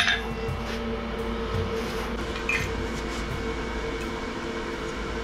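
A single hammer blow on hot steel on the anvil at the very start, then a steady low hum with no further strikes.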